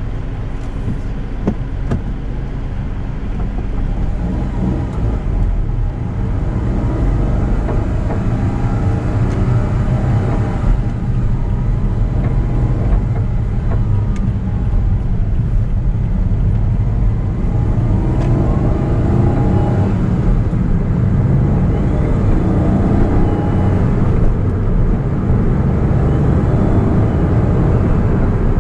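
Interior sound of a Honda S660 on the move: its small turbocharged three-cylinder engine and road noise, with the engine pitch rising several times as the car picks up speed through the gears.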